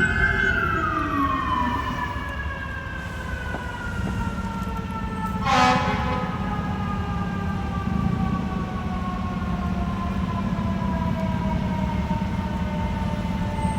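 Fire apparatus siren: a wailing sweep drops away in the first two seconds while a long siren tone slowly winds down in pitch, with one short air horn blast about five and a half seconds in, over a steady low engine rumble.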